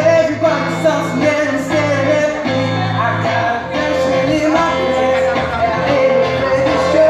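A man singing live into a microphone while playing electric guitar, over a steady bass line: a full song with vocals and instruments.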